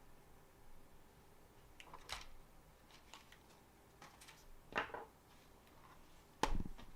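A few scattered clicks and knocks of hands handling a laptop and small tools while working on it, the loudest a dull knock near the end.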